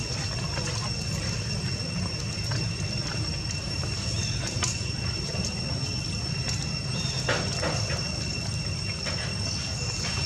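Steady outdoor background: a continuous low rumble under a thin, steady high-pitched insect drone, with scattered light clicks and rustles of dry leaves.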